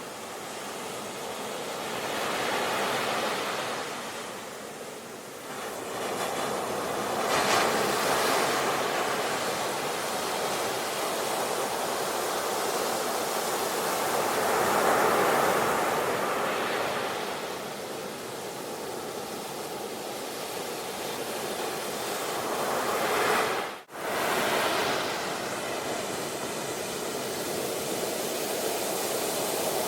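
Sea waves breaking and washing on a shore, the surf swelling and easing every several seconds. The sound cuts out for an instant about three-quarters of the way through.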